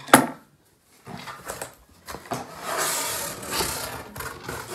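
A sharp knock right at the start, then, from about two seconds in, a rough rustling and scraping as a cardboard shipping box is worked open by hand.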